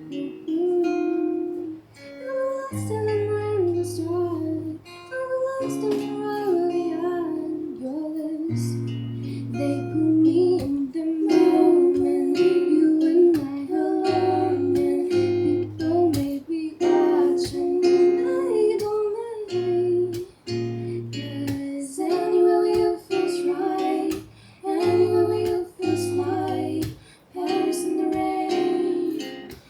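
Acoustic guitar strummed in a steady rhythm with a voice singing the melody over it, with brief pauses in the strumming here and there.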